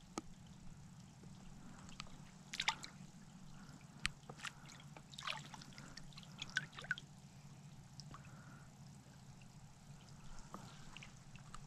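Faint water drips and small splashes as a small brook trout is released by hand and from a landing net into shallow water, most of them in the middle, over a faint low steady hum.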